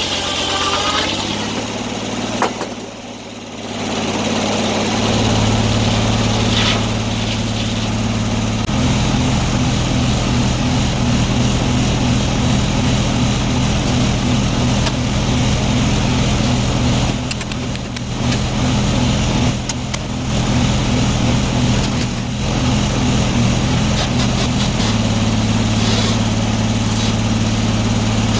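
Engine of an antique sawmill running steadily, its speed stepping up a couple of times with a brief dip about three seconds in, as the load on the mill changes.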